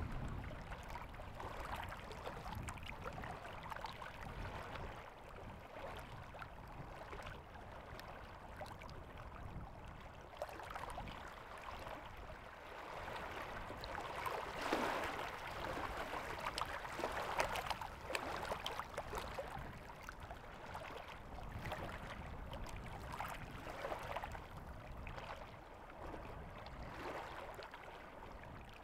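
Small lake waves lapping and splashing against shoreline rocks, a steady wash that rises and falls in irregular surges, with the biggest splashes about halfway through.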